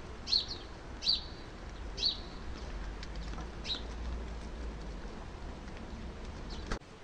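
European starlings giving short, sharp calls, four of them about a second apart in the first four seconds, over a low steady background rumble.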